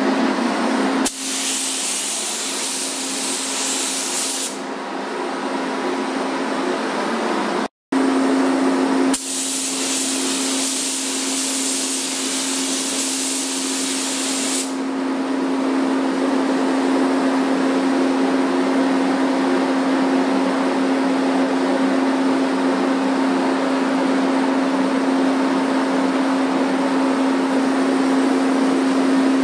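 Paint spray gun hissing in two long bursts, one starting about a second in and a longer one from about nine seconds, over the steady hum of the paint booth's ventilation fan.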